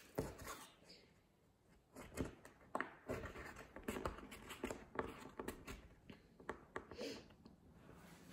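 Thin chipboard pieces being handled and pressed together on a tabletop: a run of light taps, scrapes and clicks as the glued sides of a gift box lid are fitted into their slotted edges.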